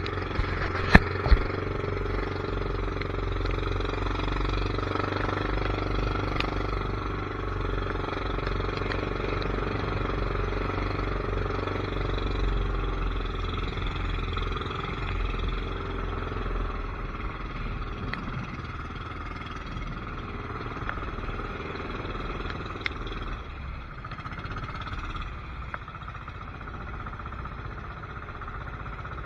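A steady engine drone of a motor vehicle, with two sharp clicks about a second in.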